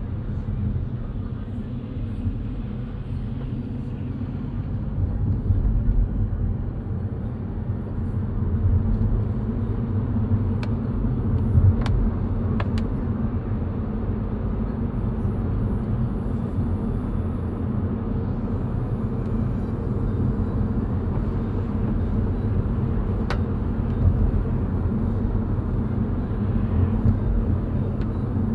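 A car driving on a wet road: steady engine and tyre rumble with road hiss, and a few faint clicks in the middle and near the end.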